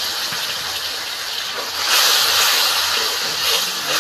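Spice-rinse water poured into hot mustard oil and frying spice paste in a kadai: a loud, steady sizzle and hiss, swelling again about two seconds in.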